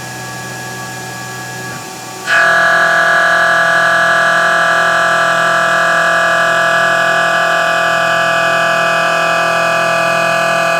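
CNC milling machine cutting: the spindle runs with a steady hiss of air from the mist coolant, then about two seconds in the cutter bites into the workpiece and a loud, steady, multi-pitched whine starts and holds.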